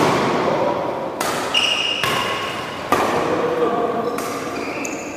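Badminton rally: rackets strike the shuttlecock four times, about a second and a half apart, each hit sharp and echoing, with short squeaks between the hits.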